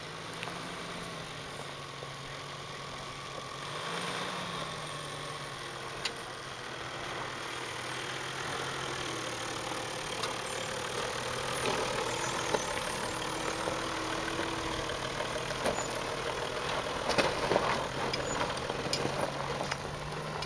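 Toyota Land Cruiser diesel engine running at low, steady revs while off-roading, rising briefly twice in the first few seconds. Scattered clicks and knocks come more often in the second half.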